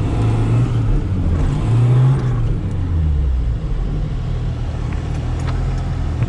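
Classic rear-drive Zhiguli (VAZ) car engine running under throttle, revs rising about two seconds in and then easing off.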